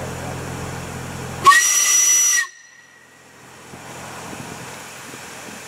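Compressed-air pumpkin cannon firing: about a second and a half in, a sudden loud blast of escaping air, a hissing whistle that lasts just under a second and cuts off sharply. Before it a steady low engine-like hum runs, stopping as the blast begins.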